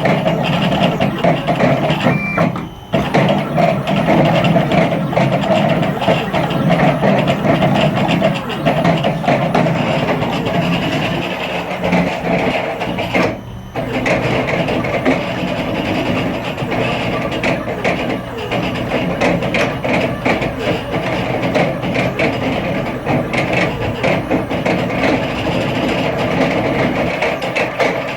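Sidewinder CNC machine running a carving program, its 400 oz-in bipolar stepper motors driven hard at 4 amps by THB6064AH drivers through quick back-and-forth, up-and-down moves. The sound changes constantly, with two brief drops, about three seconds in and about halfway through.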